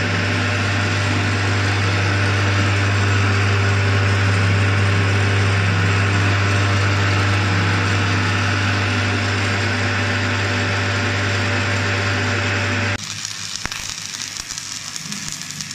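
Metal lathe running with a steady hum while turning a tractor rear axle shaft. About 13 seconds in it cuts abruptly to the crackle of electric arc welding on the axle joint.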